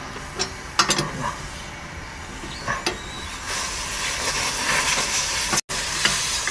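A few metal clinks of a wrench on an air-brake fitting, then from about three and a half seconds in a steady hiss of compressed air escaping as the supply fitting on a trailer's relay valve is loosened.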